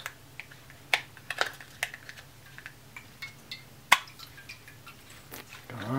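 Clicks and clacks of a plastic D-cell battery holder being handled as batteries and a copper dummy cell are pressed into it, with two sharper clicks about 1 s and 4 s in.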